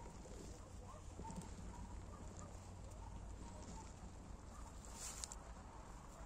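Faint outdoor background: a low steady rumble, with a few sharp clicks about five seconds in.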